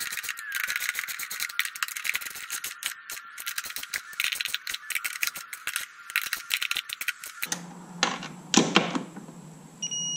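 Socket ratchet wrench on an extension clicking rapidly as it is worked back and forth on a bolt, stopping about three-quarters of the way through. A couple of knocks follow, and there is a short electronic beep near the end.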